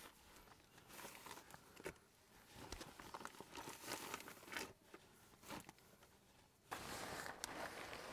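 Faint rustling of a plastic tarp under a person lying on it, with a few light clicks and knocks of hand tools on a tractor's rear hitch linkage. A faint steady hiss comes in near the end.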